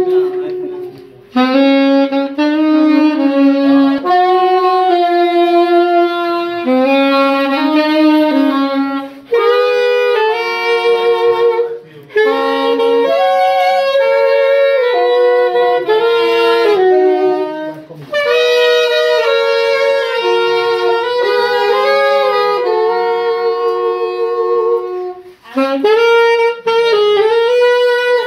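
Music: a saxophone playing a melody in phrases, with short breaks between them.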